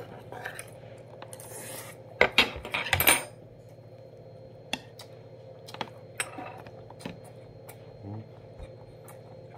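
Metal spoon and stainless-steel chopsticks clinking against ceramic dishes while eating, with a cluster of louder clinks about two to three seconds in and scattered single clicks after.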